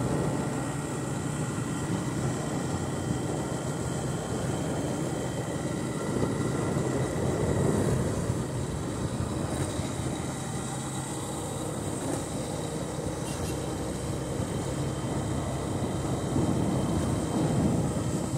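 Motorcycle engine running steadily while riding at speed, with a continuous rush of wind and road noise.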